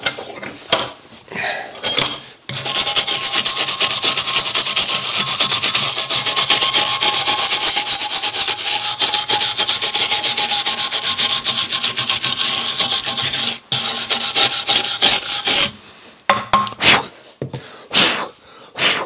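A stiff hand brush scrubbed fast back and forth over a metal part, a steady rasping scrub that stops briefly once and ends in a few separate strokes.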